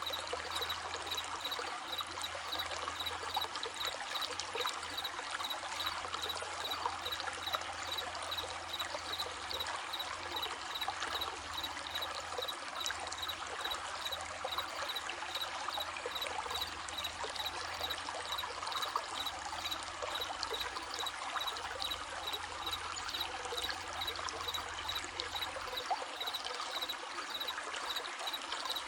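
Small stream babbling steadily over stones, with crickets chirping in a constant high, pulsing trill.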